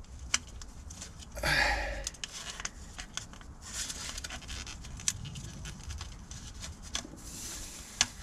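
Gloved hands handling and fitting metal parts at the engine's timing chain: scattered small clicks and rustles, with a louder scraping rustle about one and a half seconds in.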